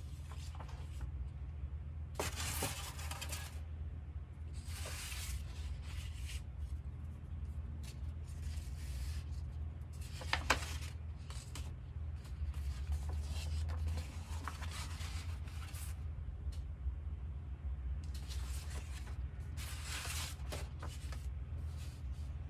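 Large paper poster pages of a softcover book being unfolded and turned by hand: repeated bursts of paper rustling and crinkling, with one sharper crackle about ten seconds in. Under them runs a steady low hum.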